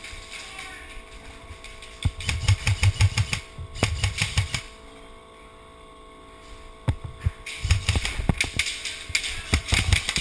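Airsoft guns firing in rapid bursts of sharp clicks, about two seconds in and again from about three-quarters of the way through, with a quieter lull between. A steady hum runs underneath.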